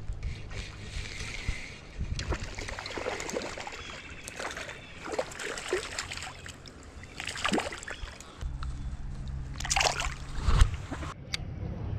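Water sloshing and splashing close to the microphone, with scattered short knocks and rustles.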